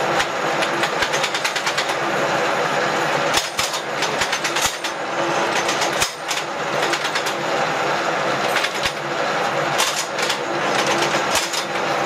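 Cincinnati No. 2 milling machine's knee power feed running, raising the knee: a steady mechanical whir from the feed gearing, with frequent irregular clicks.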